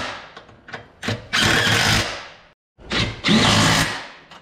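Cordless power driver running bolts down, in two bursts of just over a second each, starting about one second and three seconds in, each with a whine that rises as the motor spins up.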